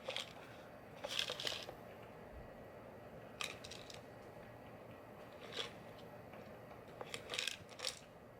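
Several short scratchy clicks and rattles, about five brief bursts spaced a second or two apart, from a cat batting at a treat-dispensing wobble toy and the small dry treats inside it.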